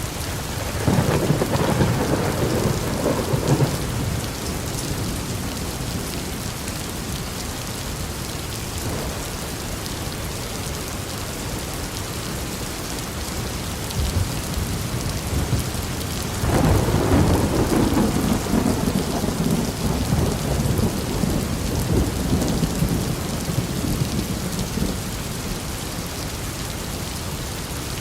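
Steady heavy rain falling, with two rolls of thunder rumbling over it: a short one about a second in, and a longer, drawn-out one past the middle that fades away gradually.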